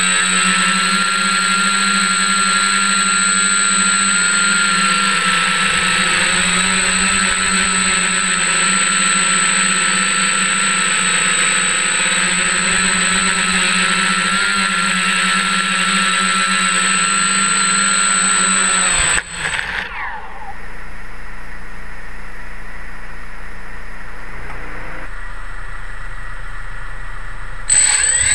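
An F550 hexacopter's six brushless motors and propellers whining steadily, recorded on board. About two-thirds of the way through, the whine drops off suddenly to a quieter, lower hum, then comes back abruptly near the end.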